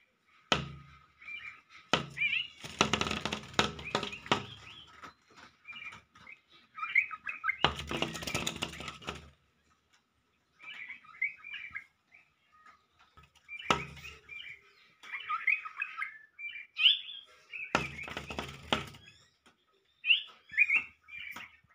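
Small birds chirping in quick, high twittering calls, with four loud rustling bursts, each about a second long, breaking in.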